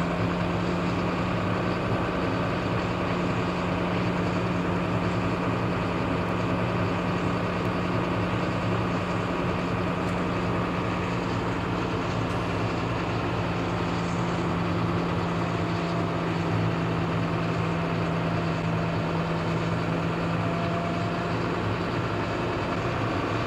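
Truck's diesel engine running steadily at a raised idle of about 1200 rpm while the air compressor builds brake air pressure. Right at the end comes a sudden sharp hiss of air, like a sneeze: the governor cutting out as the air system reaches full charge.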